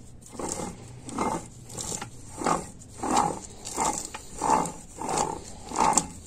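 A 41TE automatic transmission's differential gear being rocked back and forth by hand, making a rough whirring noise in repeated strokes, about three every two seconds. The noise comes from there being no gear on this side, which the rebuilder gives as the reason.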